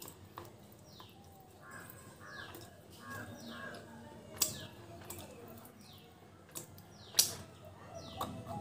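A bird repeats a short falling chirp about once a second in the background. A few sharp clicks stand out above it, the loudest about four and seven seconds in, as a bar of baked clay is handled close to the microphone and raised to the mouth.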